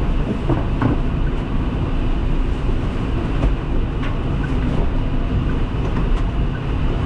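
Steady low rumble inside a truck cab: the diesel engine running, with heavy rain on the windscreen and cab.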